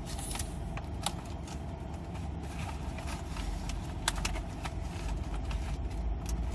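Steady low rumble of a car running, heard from inside the cabin, with scattered light clicks and crinkles of food packaging being handled.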